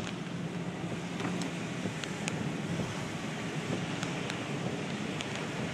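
Inside a moving car on a rain-soaked road: a steady rush of tyre and wind noise with a low engine hum that fades after about two seconds, and scattered light ticks.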